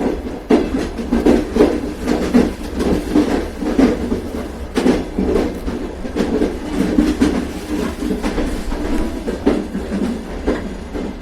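A train running along the track: a steady low rumble with the wheels clattering and knocking irregularly over the rails.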